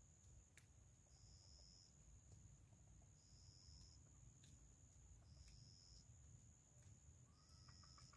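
Near silence: a faint low rumble with a thin, steady high whine, and a second high tone that pulses on for under a second about every two seconds. A chicken calls faintly near the end.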